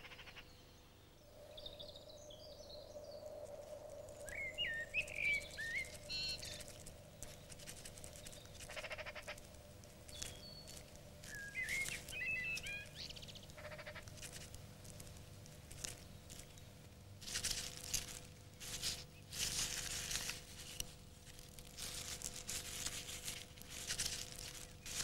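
Faint bird chirps scattered through the first half. In the second half a mouse makes dry, scratchy rustling in leaves and nest material.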